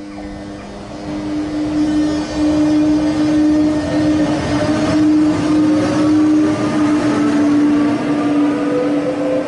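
Škoda class 163 chopper-controlled electric locomotive running past close by, giving a steady hum with a fainter whine that rises slowly in pitch; it grows louder over the first couple of seconds as it nears.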